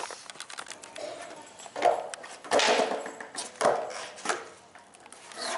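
Skateboard on asphalt: wheels rolling, with about four sharp clacks of the wooden deck as a flatground trick is popped and landed.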